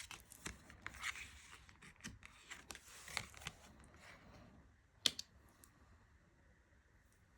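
Tarot cards being handled and shuffled: a run of small rustles and clicks of card against card for the first few seconds, then one sharp tap about five seconds in.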